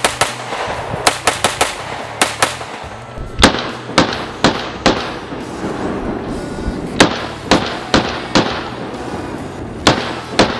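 STI Comet .38 Super pistol fired repeatedly, about fifteen sharp shots in irregular strings with pauses between, some shots fainter than others.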